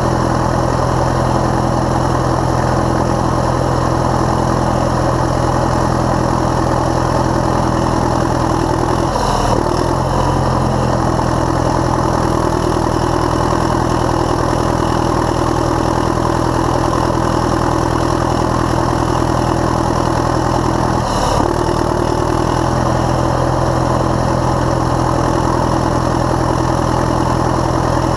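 Caterpillar D7E bulldozer's diesel engine running steadily while the dozer pushes dirt, heard from on the machine. The engine note briefly dips twice, about a third of the way in and again near three quarters of the way.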